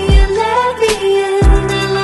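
Background pop music: a melody over a beat of deep bass kicks with a sharp snare hit.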